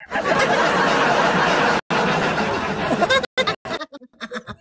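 Several people laughing hard at once over a live video call, a dense, loud burst of laughter for about three seconds that then breaks up into short chuckles.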